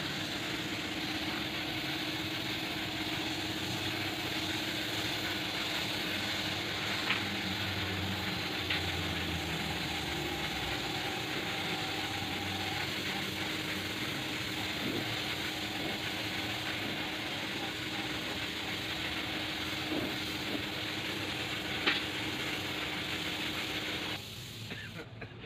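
Gravity-feed air spray gun hissing steadily as it sprays paint onto a van's bodywork, over a steady low hum, with a few light clicks; the hiss cuts off about a second before the end.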